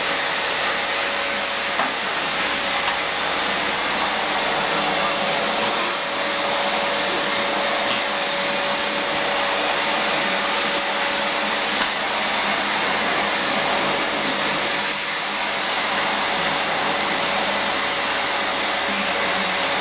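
Vacuum cleaner running steadily: a constant rushing hiss with a faint high whine.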